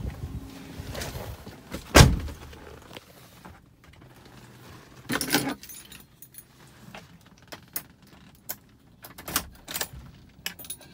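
A single loud thump about two seconds in. Then keys jangling and clicking in short runs as a car key is handled at the ignition of a Daewoo Matiz.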